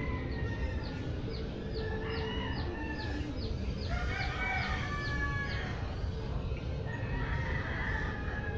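Roosters crowing, several long drawn-out crows one after another. A rapid run of short high chirps, about three a second, goes on over the first half.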